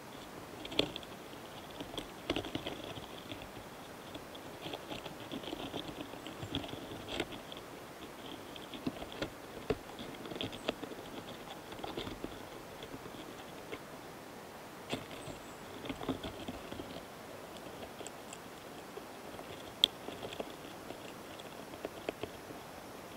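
Close-recorded karakane flower longhorn beetles (Gaurotes doris) on a flower head during courtship and mating: irregular scratchy rasps and small clicks. The loudest is a sharp tick about a second in, with another near the end.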